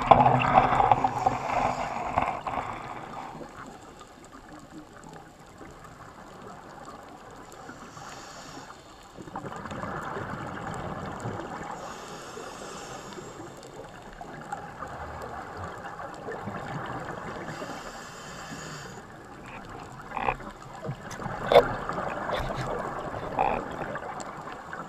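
Muffled underwater noise picked up through a camera's dive housing: a steady watery hiss that drops back after a few seconds and swells again, with a few sharp clicks near the end.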